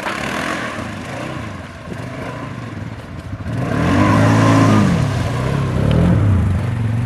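Polaris Sportsman 570 ATV's single-cylinder engine running as it wades through deep water, with water churning around it. In the second half the engine revs up and back down a couple of times and gets louder.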